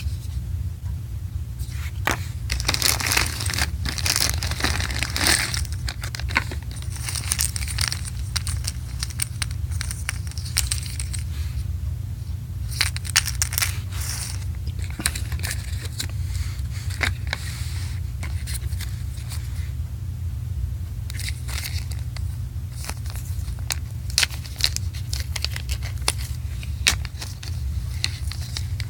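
Packaging being handled and opened: irregular crinkling, tearing and small clicks, over a steady low hum.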